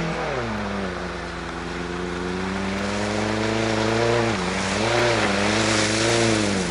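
1984 Datsun/Nissan pickup truck's engine being driven. The revs drop about half a second in, climb slowly, then dip and pick up twice in the second half as the driver eases off and gets back on the throttle, and they fall again near the end.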